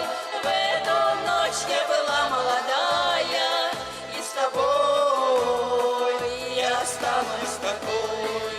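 Folk ensemble singing a slow song in several-part harmony, voices holding long wavering notes over a steady accompaniment.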